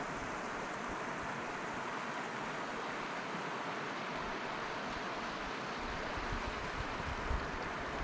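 Shallow stream flowing over rocks and stones, a steady rushing sound. Near the end, light wind starts bumping on the microphone.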